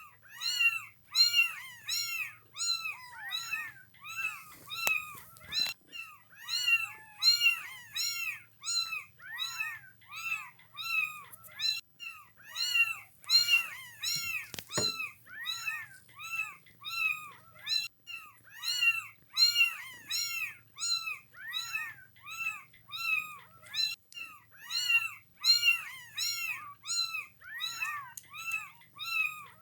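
A litter of young kittens meowing nonstop: short, high-pitched mews that rise and fall in pitch, two or three a second, several voices overlapping.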